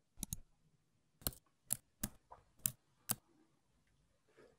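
Computer mouse clicks: a series of short, sharp clicks, a quick double click followed by about six single clicks over the next two seconds.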